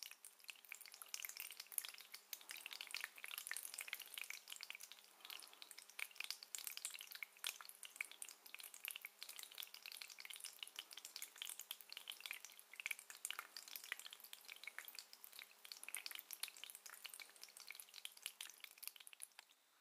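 Fizzing crackle of tiny bubbles bursting at an aquarium's water surface, a dense run of soft irregular clicks, over a faint steady hum.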